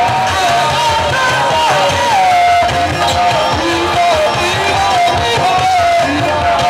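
Live praise band music with a steady drum beat and a single gliding lead melody line.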